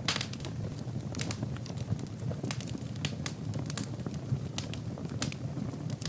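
Log fire burning in a fireplace: the wood crackles and pops sharply and irregularly, several times a second, over a steady low rush of flame.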